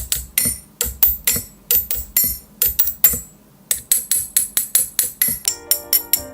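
Keystrokes on a custom mechanical keyboard, sharp and clacky rather than creamy or thocky. The strikes come about two or three a second, pause briefly, then speed up to four or five a second. Pitched musical notes join near the end.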